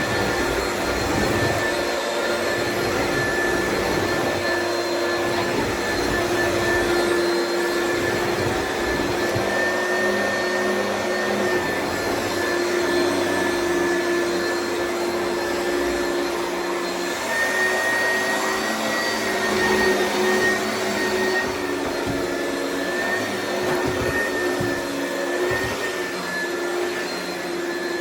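Oreck upright vacuum cleaner running steadily, a motor whine over rushing air whose pitch shifts slightly as it is pushed over the floor, with a crunchy crackle of debris being drawn in.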